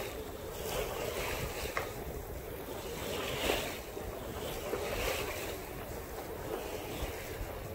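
Water rushing and splashing along the hull of a Hunter 356 sailboat under sail through choppy water, with wind buffeting the microphone. A louder surge of water comes about three and a half seconds in.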